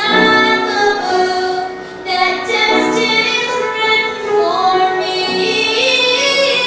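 A child's voice singing a song with instrumental accompaniment, holding long notes.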